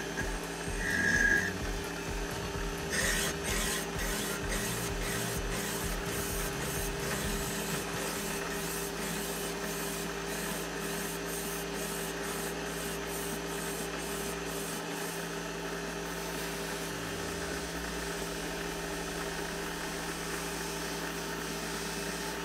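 A file, then abrasive cloth, rubbing on a brass tube as it spins in a lathe: a steady rasping rub over the even hum of the lathe.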